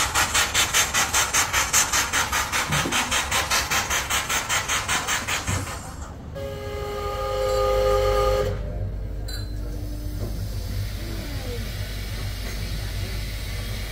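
Steam hissing in even rhythmic puffs, about four a second, until they stop about six seconds in. Then a steam whistle sounds one chord-like blast of about two seconds, followed by a fainter, lower short tone over a steady low rumble.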